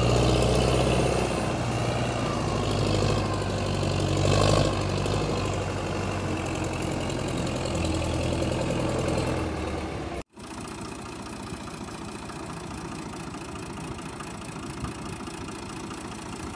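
Belarus tractor's diesel engine running under heavy load as it pulls a trolley piled with sugarcane, a deep steady note that swells briefly about four seconds in. About ten seconds in it cuts off abruptly to another tractor's engine running steadily and more quietly.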